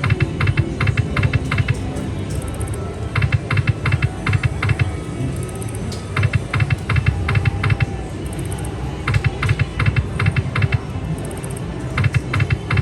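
Diamond Avalanche video slot machine spinning repeatedly: each spin brings a burst of rapid electronic clicks as the reels run and stop, about every three seconds, over steady background music.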